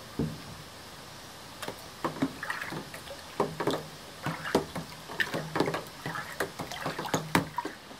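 Liquid sloshing and splashing in a plastic tub as the fermented indigo water is stirred, in irregular strokes, to mix in dissolved hydrated lime and raise its pH.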